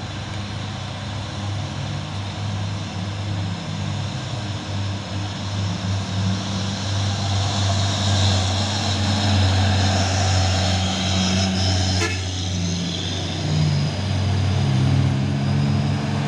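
Diesel engines of heavy cargo trucks, a Mitsubishi Fuso and a Hino among them, running steadily as they drive past close by, growing louder about halfway through. A single sharp click sounds about twelve seconds in.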